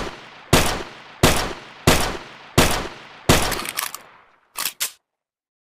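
Makeshift M1911 pistol sound effect: six shots fired in steady succession about two thirds of a second apart, each trailing off in an echoing tail, followed by two short sharp clicks about a second after the last shot.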